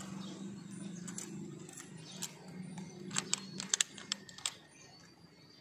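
Irregular small clicks and light jingling, the loudest a few sharp ticks around the middle, over a low engine hum that fades out about two thirds of the way through.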